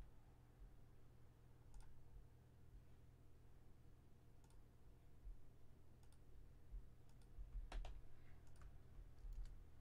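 Near silence with a low steady hum, broken by a few faint, scattered clicks; the loudest cluster comes near the end.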